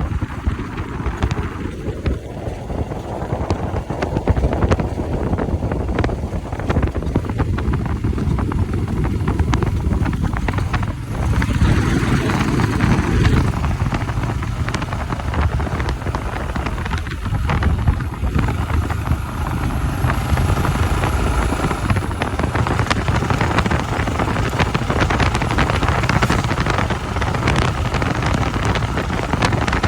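Wind buffeting the microphone on a moving Royal Enfield Himalayan motorcycle, with the engine running underneath; a steady, loud rush that swells and eases.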